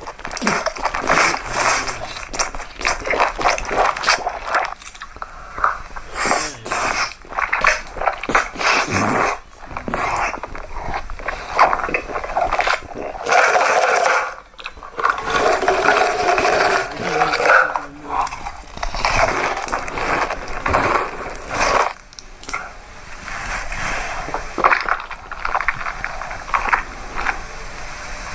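Close-miked eating sounds: a person chewing food, with many short crunches and wet mouth smacks in quick, uneven succession.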